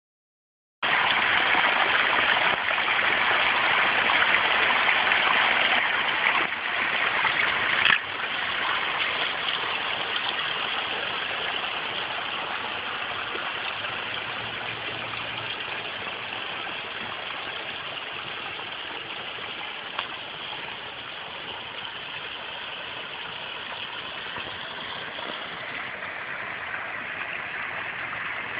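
Water running steadily over the rocks of a pondless garden waterfall, a constant rushing splash that grows a little quieter about eight seconds in.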